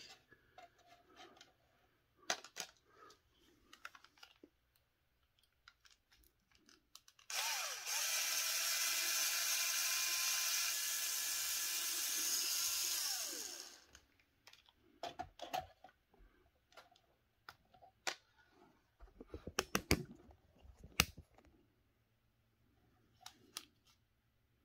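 Small cordless power driver spinning up, running steadily for about six seconds and winding down, with a 1.5 mm hex bit backing out small screws from an RC differential. Light clicks and taps of small parts and screws being handled come before and after it.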